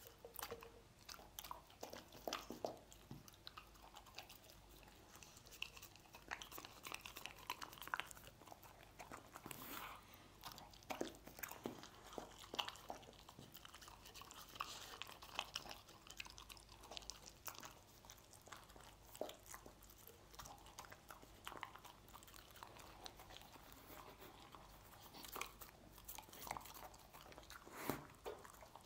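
A dog eating stir-fried meat pieces, licking them up off a wooden board and chewing them with quiet, irregular crunches and clicks.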